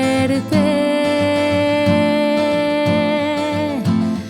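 A woman singing a song in Spanish, ending the word "suerte" and then holding one long note from about half a second in until near the end, over guitar accompaniment.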